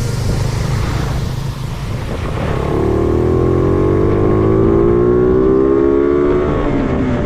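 Motorcycle engine accelerating over a steady low rumble: from about three seconds in its pitch climbs slowly for several seconds, then drops near the end as the throttle eases or the gear changes.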